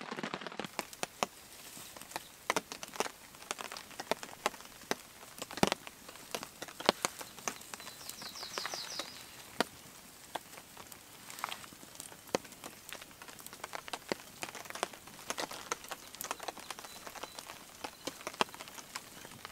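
Small campfire of kindling crackling, with irregular sharp snaps and pops, the fire just catching after being nearly smothered.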